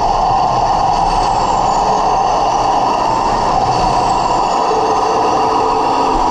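A 1/16 Heng Long T-90 RC tank driving, heard close from on board: its electric drive motors and gearboxes whine steadily, with a second lower tone joining near the end.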